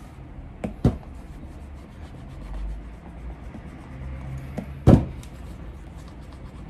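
Cloth rubbing wax over a leather shoe during a mirror shine, with a few sharp knocks, the loudest about five seconds in.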